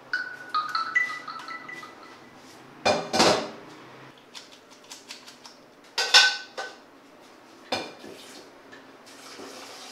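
Metal saucepan and steel strainer bowl clanking as noodles are drained. The first knocks leave a brief ringing tone, and there are loud clusters of clanks about three seconds in and again about six seconds in.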